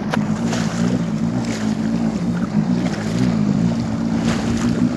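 Jet ski engine running at a steady pitch, under load as it tows a banana boat full of riders. Water rushing and wind buffeting the microphone.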